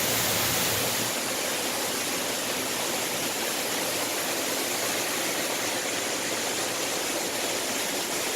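Steady rushing of running water at koi holding tanks, an even hiss with no speech, a little louder in the first second.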